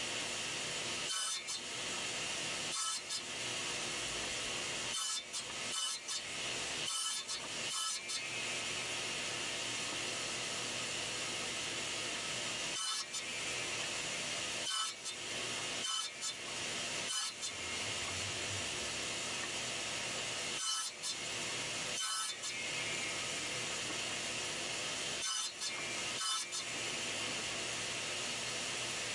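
Table saw running steadily while its blade cuts a board held upright in a sled, making repeated short passes for the angled cheeks of dovetail tails. The sound breaks off sharply for an instant many times, every second or few seconds.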